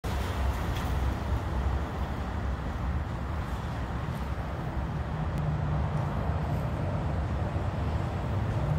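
Steady low rumble of road traffic, with an even background hiss.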